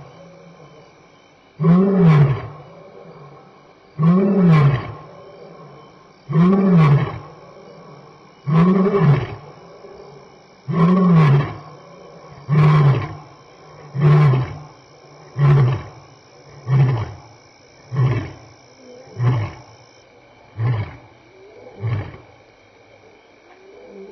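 A lion's roaring bout: about five long, deep roars, each rising and then falling in pitch, come roughly two seconds apart. They give way to a run of shorter grunts that come a little faster and fade out, and the bout ends near the end.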